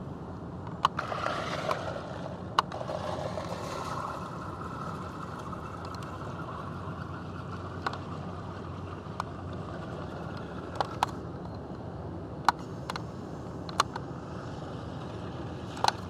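Rain on a parked vehicle heard from inside the cab: sharp, irregular taps of single drops against a steady low rumble, with a brief swell of rushing noise a second or two in.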